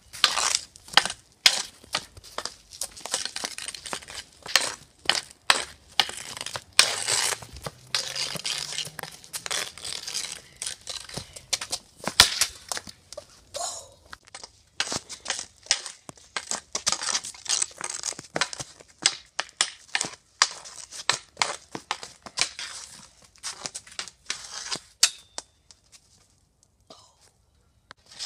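A hockey stick blade scraping and clacking on concrete while stickhandling a plastic street hockey ball and pucks. Many irregular sharp taps with scraping hiss between them, pausing briefly near the end.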